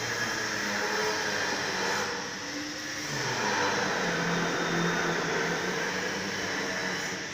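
Heavy truck engine running, a steady mechanical din that eases off briefly twice.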